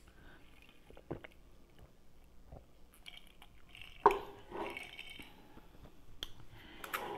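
A person chewing and working food around the mouth, close to a lapel microphone, with small wet clicks and lip smacks and a sharper short mouth sound about four seconds in.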